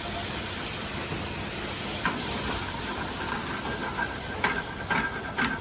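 White wine hitting a hot skillet of sautéed vegetables, a steady strong sizzling hiss as the pan is deglazed, with a few light clicks near the end.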